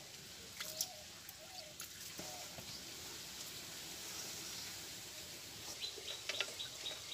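Faint scrunching and clicking of hands kneading crumbly flour dough in a steel bowl. Small birds chirp in the background, with a run of quick high chirps near the end.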